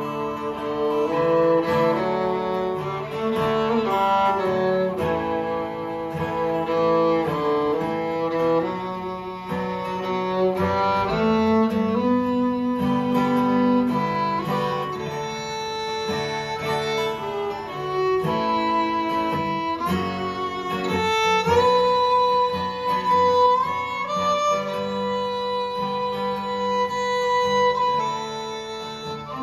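Fiddle playing an instrumental break over a strummed acoustic guitar. The fiddle melody moves through short notes at first, then settles into long held notes in the second half.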